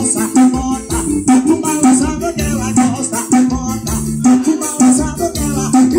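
A Brazilian song with a steady beat and heavy bass played loud through a Volkswagen Space Fox's car audio system, with Eros 18-inch subwoofers and Snake midrange speakers.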